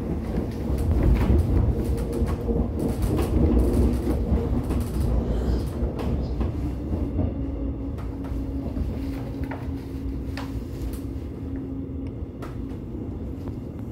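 Electric commuter train running and slowing as it comes into its terminal station. The low wheel-and-track rumble fades steadily, with scattered clicks throughout and a steady motor hum through the middle.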